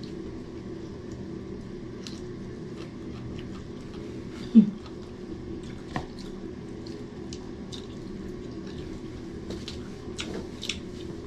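Mukbang eating sounds: chewing and lip smacks and hands picking at rice and chicken, heard as scattered small wet clicks over a steady low hum. A short, loud pitched blip comes about four and a half seconds in.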